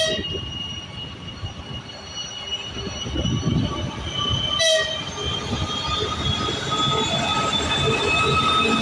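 Freight train rolling through on steel wheels, getting louder, with high-pitched wheels squealing against the rails. Two sharp metallic clanks, one at the start and one about four and a half seconds in.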